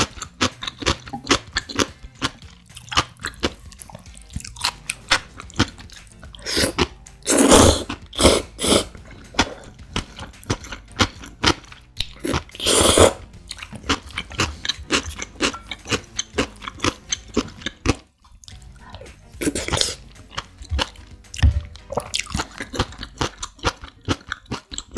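Close-miked eating of creamy instant jjamppong noodles: three loud slurps of noodles, the first about a third of the way in, with wet chewing and mouth clicks running between them.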